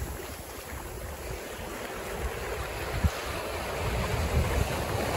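Waves washing onto a sandy beach, with wind gusting on the microphone; the surf grows louder toward the end, and there is a brief thump about three seconds in.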